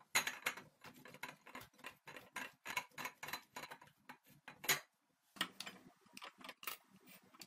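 Block of kaşar cheese rubbed down a stainless-steel box grater in quick strokes, about three a second, each a short scratchy rasp. It stops briefly about five seconds in, then comes a run of lighter scrapes and clinks of a fork gathering grated cheese on a ceramic plate.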